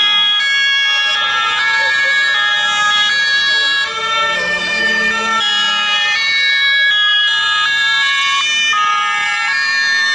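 Several two-tone emergency vehicle sirens sounding at once, each switching back and forth between a high and a low note, out of step with one another.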